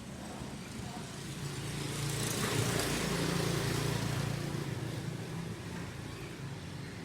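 A motor vehicle engine running at a fairly steady pitch. It grows louder over the first few seconds, peaks around the middle, then slowly eases off.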